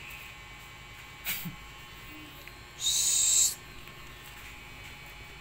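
A hamster's short, harsh screech, a hiss-like squeal lasting under a second, near the middle; a faint click comes about a second before it.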